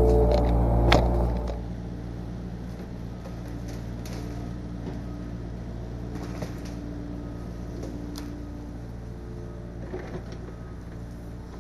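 Yanmar SV40 mini excavator's diesel engine running, loud with a sharp knock about a second in, then dropping after about a second and a half to a quieter steady hum with a few light clicks.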